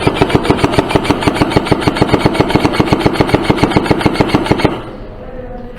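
Airsoft electric gun firing one long full-auto burst: a rapid, even mechanical rattle that stops abruptly near the end.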